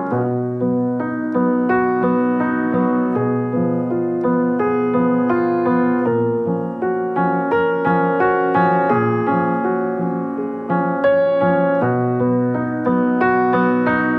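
Piano music: a steady stream of struck notes over low bass notes that change every second or two.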